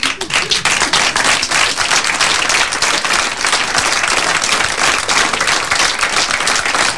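Live audience applauding: dense, steady clapping that breaks out all at once at the start and keeps up.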